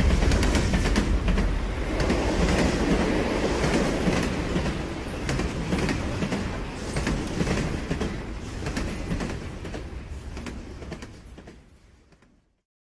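Train running with a steady rumble and a rapid clatter of wheels on the rails. It fades away over the last few seconds and stops just before the end.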